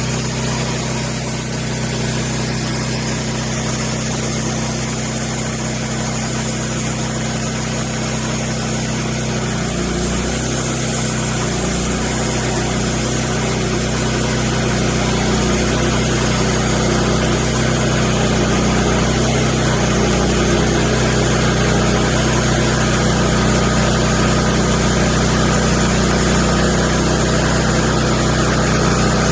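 Wood-Mizer LX150 bandsaw sawmill running steadily under power, its band blade slabbing a large magnolia log.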